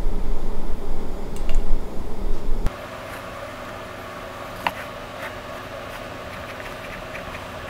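Loud, uneven low rumbling noise for the first two and a half seconds. It cuts off suddenly to quiet room tone, with a single sharp click and a few faint scratches of a mechanical pencil marking a line on wood.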